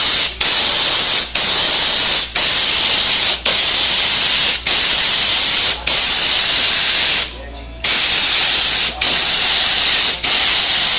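Gravity-feed air spray gun hissing as compressed air from a homemade scrap-built compressor blasts through it. The hiss comes in bursts about a second long broken by short gaps, with a longer pause about seven seconds in.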